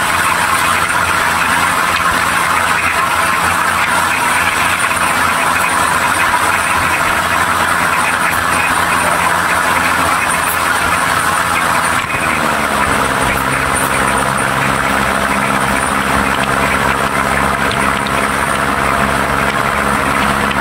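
A passenger train running along the track, heard from a carriage window: a steady rush of wind and rolling wheels over the low hum of the diesel locomotive. About twelve seconds in, the engine note dips slightly and settles into a steadier, lower hum.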